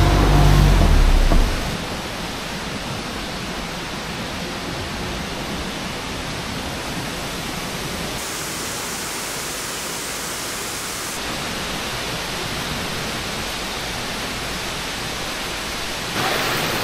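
Steady rush of falling water from a waterfall in a gorge. A loud low rumble sits under it for the first second or so, and the hiss grows brighter for about three seconds midway.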